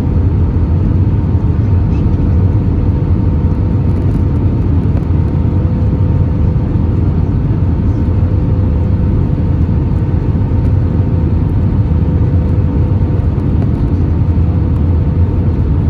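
Steady cabin noise of an Airbus A320 airliner in flight: an even, deep rumble with a constant hum of two steady tones.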